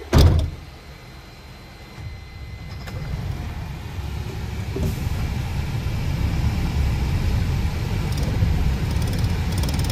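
Heavy truck's diesel engine running, a low rumble that grows steadily louder from about two seconds in as the empty truck gets under way. A short loud thump comes at the very start.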